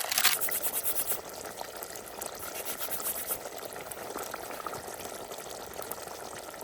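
Curry gravy simmering in a pan, a steady bubbling with small pops, a little louder in the first second.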